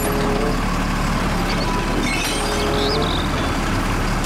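Automated side-loader garbage truck running steadily while its arm grabs a wheeled trash cart and lifts it toward the hopper.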